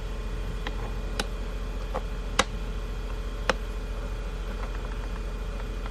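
Clear acrylic crossbars being handled and set down, giving a few sharp, irregularly spaced clicks and taps of plastic on the tabletop and against each other, over a steady low background hum.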